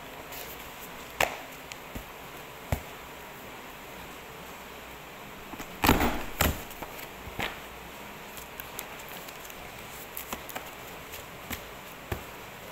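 Heavy-duty desktop hole punch pressed down through a thick stack of documents, giving a loud double clunk and crunch about six seconds in. Around it come a few sharp knocks and rustles from the paper stack being handled.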